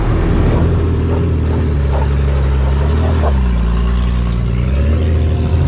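Engine of a lifted Jeep Grand Cherokee with a locked rear differential running close by as it turns through a lot, its pitch dipping and rising a few times with the throttle. A few short clicks come about two and three seconds in.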